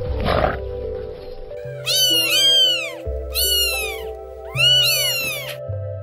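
Three drawn-out animal calls, each rising and then falling in pitch, over background music with a steady bass line.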